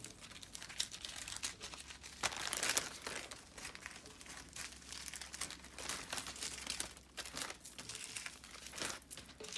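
Plastic zip-lock bags crinkling as they are handled: small bags of diamond-painting crystals being gathered and packed into a larger zip-lock bag. The rustling is irregular and is loudest about two to three seconds in.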